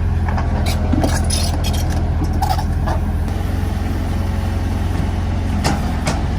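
Excavator diesel engine running steadily under load, with several sharp metallic clanks in the first half and two more near the end.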